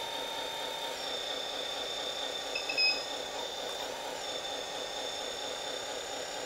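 Hydraulic pump of a 1/14 metal RC wheel loader running steadily with a thin whine as the bucket is lowered and tilted, its pitch shifting slightly as the hydraulic load changes. A short beep sounds just under three seconds in.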